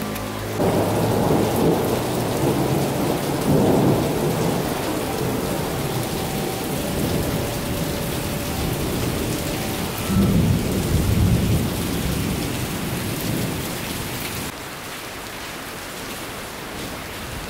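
Heavy rain pouring down steadily, with thunder rumbling three times: about a second in, around four seconds in, and again around ten seconds in.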